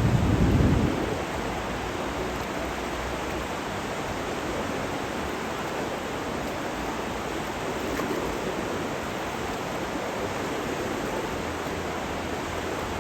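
Steady rushing water of the Colorado River, a loud low rumble in the first second settling into an even roar.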